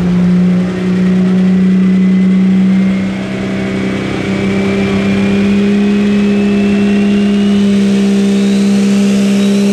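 Super modified 4WD pulling truck's engine held at high revs under full load during a pull, loud and steady, with brief dips about a second in and about three seconds in. A thin whine climbs slowly in pitch throughout.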